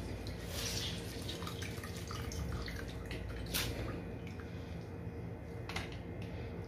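Water dripping and trickling back into a plastic tub as handfuls of wet grated potato are squeezed out by hand, with a few louder drips and splashes.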